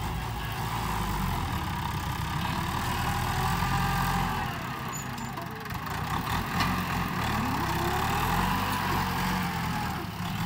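New Holland TS90 tractor's diesel engine running as the tractor works the soil piles. The engine note sags about halfway through, then climbs again a couple of seconds later.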